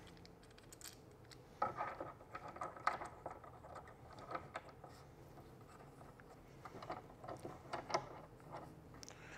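Faint, scattered clicks, taps and scraping of a phone-mount arm and its small hardware being handled and fitted onto a plastic dash-mount bracket. The clicks come in two clusters, one a couple of seconds in and another near the end.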